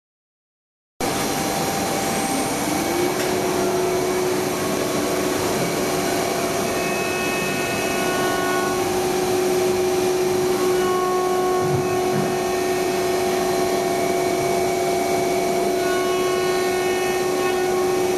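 Maka PE70 CNC router running. The sound cuts in suddenly about a second in, and the spindle's whine rises, then holds a steady pitch over a steady rushing noise. Higher tones start and stop through it as the machine works.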